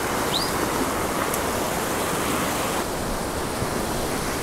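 Mountain stream rushing over rocks in a steady, even wash of water noise. One short, high, rising chirp sounds about half a second in.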